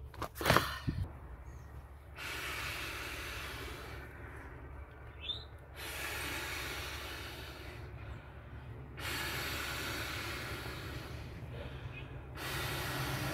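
A swim tube being blown up by mouth: long hissing exhalations into its valve, about four in a row, with short quiet pauses for breath in between. A brief knock about half a second in.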